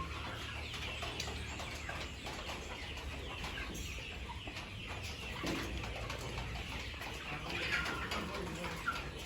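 A flock of Kuroiler chickens clucking and calling, many short overlapping calls, over a steady low hum.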